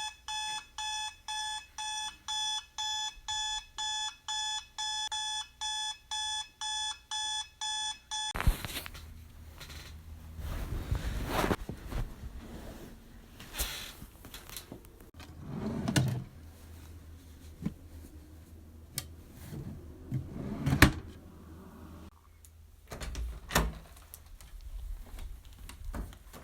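Electronic alarm clock beeping at about two beeps a second, cutting off suddenly about eight seconds in. After it come scattered knocks, thuds and rustling.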